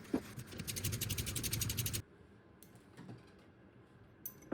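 Ratchet wrench clicking in a fast, even run for about two seconds, then cutting off suddenly, followed by a few faint single clicks.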